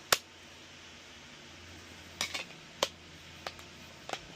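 Sharp hard-plastic clicks and taps from handling a Netgear Nighthawk M6 hotspot as its battery is fitted and the unit is put together. One loud click comes just after the start, then a few lighter clicks in the second half.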